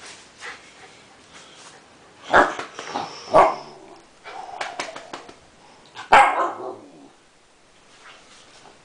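Siberian husky puppy barking: two loud barks about a second apart, a softer drawn-out vocal sound, then a third loud bark, with quieter stretches before and after.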